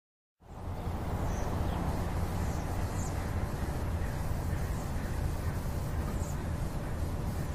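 Steady low rumble and hiss of outdoor ambience, starting abruptly about half a second in, with a few faint high bird chirps scattered through it.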